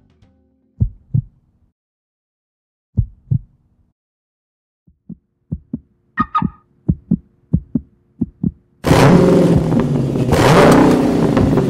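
Heartbeat sound effect, slow low double thumps that come faster and faster, cut off about nine seconds in by a Dodge Challenger R/T's V8 engine revving loudly, its pitch rising and falling.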